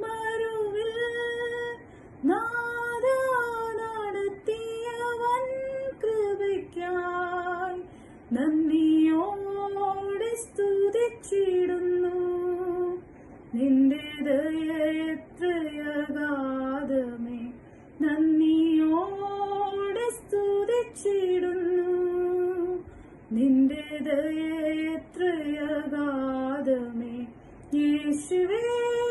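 A woman singing solo without accompaniment, in long held phrases that slide between notes, with short breaks for breath between lines.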